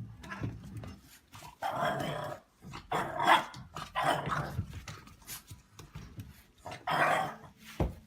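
A dog growling and barking in several short bursts a second or so apart.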